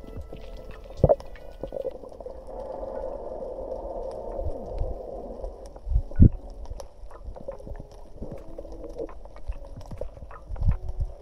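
Underwater sound picked up by an action camera in its housing: muffled water noise and gurgling, with a few low thumps.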